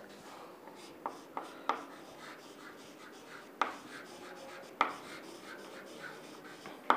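Chalk writing on a blackboard: faint scratching strokes with a few sharp taps as the chalk strikes the board.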